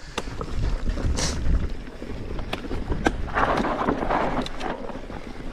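Mountain bike riding down a rocky trail: tyres rolling over loose stones, sharp clicks and knocks from the bike, and a low rumble of wind on the microphone. A brief rush of hiss comes about three and a half seconds in.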